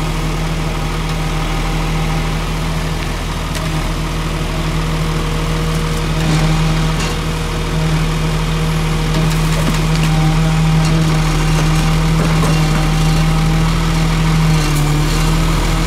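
Heavy truck's diesel engine running steadily to drive its loader crane's hydraulics, with a constant low hum that gets louder about six seconds in and again at eight, as the crane's grab bucket works at pulling out a hedge.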